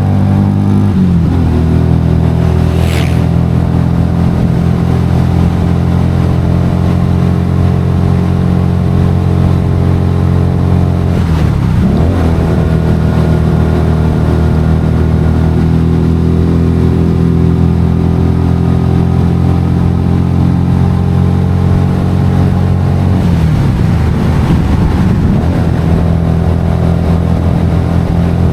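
Motorcycle engine running steadily while riding. The engine note dips and climbs back three times: about a second in, near the middle, and near the end.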